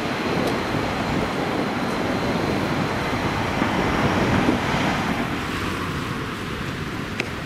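Street traffic noise: cars driving close past, loudest about four seconds in, then easing off.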